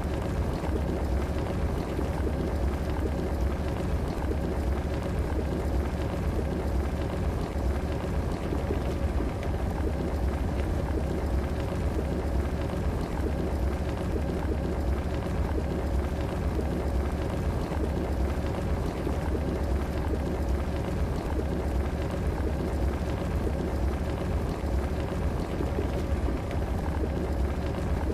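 Electric kettle heating water, a steady rumbling hiss with bubbling and a faint steady hum underneath.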